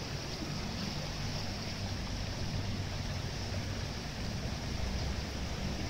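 Floodwater rushing steadily across a road, with wind buffeting the microphone as a low rumble.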